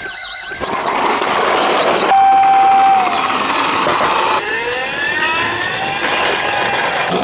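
Toy police car's siren sound: a whirring, rattling noise, then about two seconds in a held tone that slides down, followed by several overlapping rising and falling siren wails.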